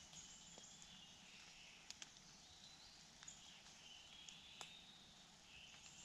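Near-silent woodland ambience: faint, thin, high-pitched calls of distant small creatures, with a few soft ticks.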